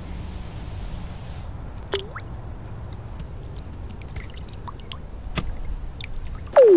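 Scattered water drops dripping over a steady low rumble of water, with a falling swoosh near the end.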